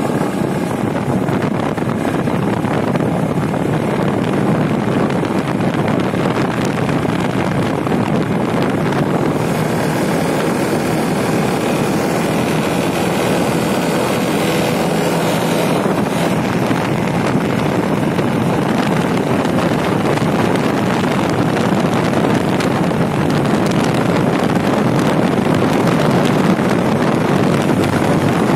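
Motorcycle engine running steadily while riding at speed, largely covered by heavy wind noise on the phone's microphone.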